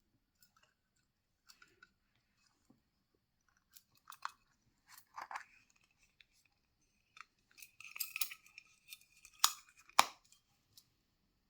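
Hands handling and opening small surprise-box packaging: scattered light taps and rustles, a rough scraping rasp about eight seconds in, then two sharp snaps near the end.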